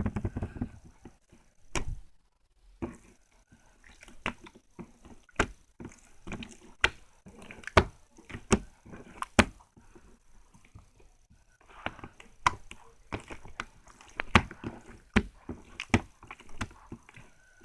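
Slime being squeezed and pressed by hand, making irregular sharp pops and clicks with patches of denser crackling.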